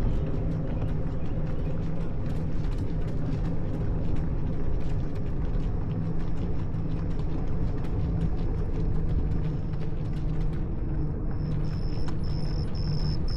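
Wind buffeting the camera microphone with tyre and road rumble during a bicycle ride, with scattered small ticks. Near the end a high, thin tone starts pulsing a little under twice a second.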